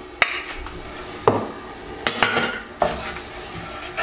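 Diced carrots, onion and garlic being tipped into and stirred in a non-stick frying pan with a wooden spatula: several sharp knocks and scrapes of the utensils against the pan, a cluster of them about two seconds in, over a faint sizzle.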